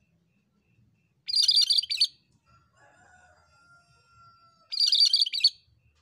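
A caged cucak kerinci gives two short bursts of rapid, high chattering song, each under a second long and about three seconds apart.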